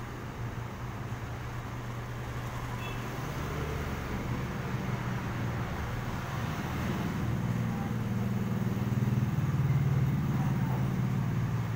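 Street traffic passing: a steady low engine hum from cars, a jeepney and motorcycles, growing louder over the last few seconds.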